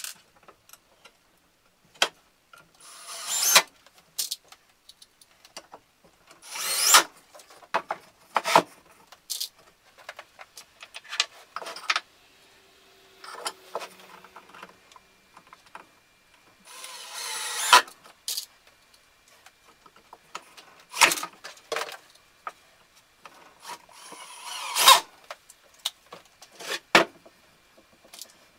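Cordless drill-driver driving screws through metal corner brackets into a wooden 2x4 frame, in several separate runs of about a second each, each getting louder toward its end. Between the runs come short clicks and knocks as screws and brackets are handled and the frame is moved.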